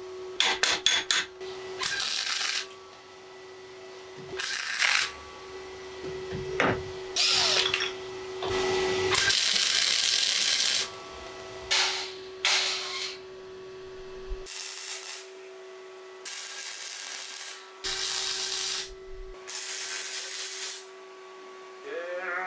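MIG welder tack-welding a steel bar handle onto a steel door frame: about ten separate bursts of arc noise, each half a second to two seconds long, with short pauses between them. A few quick clicks come just before the first burst.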